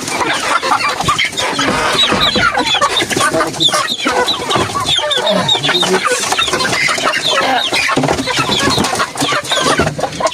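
A flock of chickens clucking and calling all at once, many birds overlapping in a steady din: hungry hens waiting for feed.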